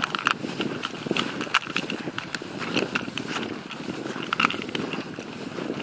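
Footsteps swishing and crunching through rough, tussocky bog grass at a walking pace, with small sharp clicks among the steps.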